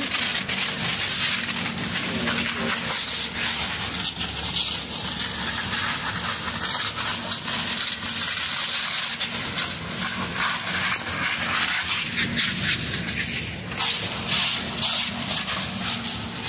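Large fire crackling and hissing up close: a dense, steady rush of noise full of small pops and snaps.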